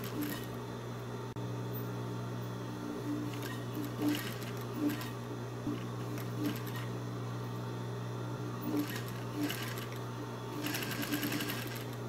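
Industrial straight-stitch sewing machine hemming a curtain: a steady motor hum with short, repeated runs of stitching as the folded hem is fed through. The sound cuts off abruptly at the end.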